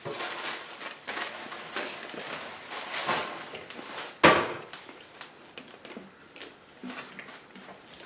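Rustling and handling noises at a table, with scattered small clicks and one sharp knock about four seconds in.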